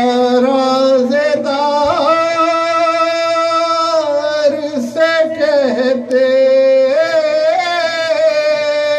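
A man singing devotional verse solo in long, held, ornamented notes, coming in suddenly at full voice.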